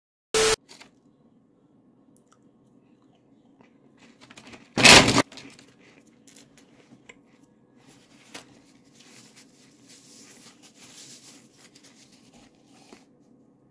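Close-up crunching and crackling noises with a loud sudden rustle about five seconds in, over a faint low hum. A brief loud blip comes right at the start.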